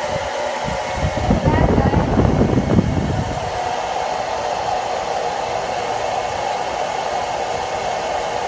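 Handheld hair dryer running steadily on its low setting, blowing air with a steady whine over a rush of air. From about one to three seconds in, a heavier rumble of air comes in.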